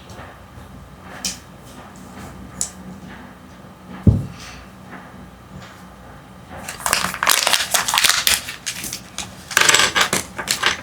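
Plastic wrapper being handled during a toy unboxing: a few light clicks, a single knock about four seconds in, then loud crinkling of the wrapper in two spells through the second half.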